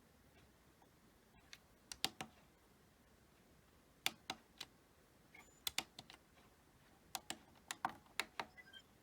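Buttons on a La Crosse W85947 weather radio pressed in quick clusters of sharp clicks, two to six at a time, while its settings are worked through.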